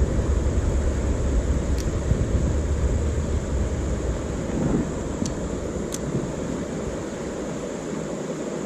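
Wind buffeting an outdoor camera microphone, a steady uneven low rushing that eases a little in the second half, with a few faint clicks.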